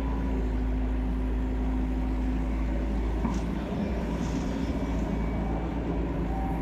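Excavator's diesel engine running steadily with a low, even rumble.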